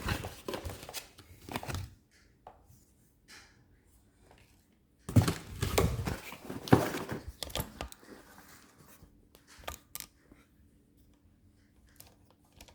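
A gun box being opened and its packaging handled: bursts of scraping, rustling and tearing in the first two seconds and again from about five to eight seconds in, then a few light clicks.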